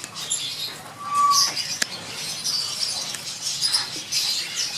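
Small birds chirping and twittering in many short high calls throughout, with one brief clearer whistle about a second in.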